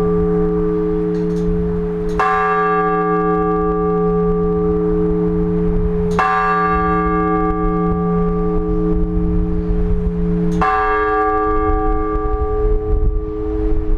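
A single large Orthodox church bell struck three times, about four seconds apart, each stroke ringing on into the next. These are the slow, measured strokes of blagovest, the single-bell ringing that announces the start of a service.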